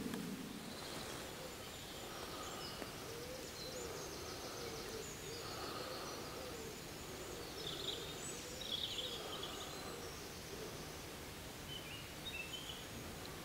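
Woodland birdsong: several birds singing short high phrases, over a lower call that repeats through the middle.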